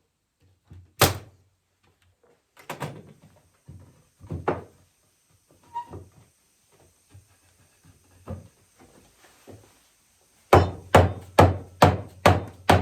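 Hammering on a walnut rocking chair frame during assembly. Scattered single knocks and taps come first; then, about ten and a half seconds in, a quick, even run of loud blows follows, about two a second.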